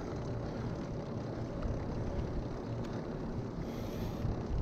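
Steady riding noise from a recumbent trike: its fat knobby tyres rumbling on asphalt, mixed with wind buffeting the microphone.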